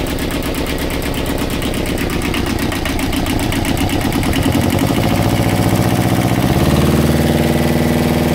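Universal 5411 marine diesel engine running, its speed rising from a low idle about halfway through and then holding steady at a higher speed as the throttle linkage on the injection pump is opened.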